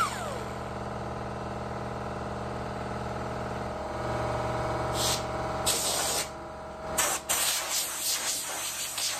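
A pneumatic whiz wheel (right-angle air grinder) spins down with a falling whine right at the start, over a steady machine hum. From about five seconds in come several short, loud hissing blasts of compressed air from an air hose, blowing grinding dust off the fiberglass grille.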